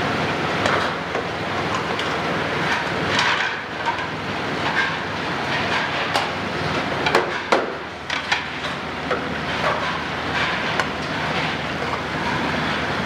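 Crockery clattering in a commercial dish room: plates and bowls knock against each other and the steel counter several times, over the steady noise of the dish-return conveyor and machinery running.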